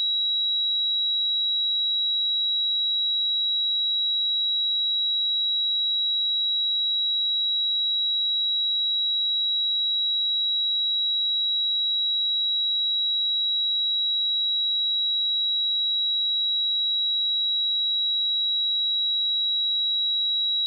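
A steady pure sine-wave test tone at 3874 Hz, a single high-pitched whistle-like note held at constant pitch and level.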